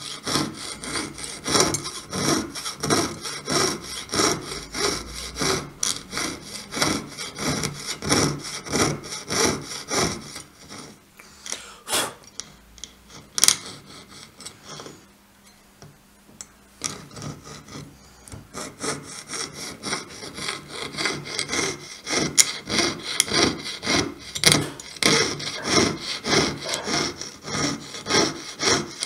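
Jeweller's piercing saw cutting out the spokes of a small metal escape wheel blank, in quick even rasping strokes. The sawing stops for a few seconds about halfway, with two sharp clicks in the pause, then picks up again.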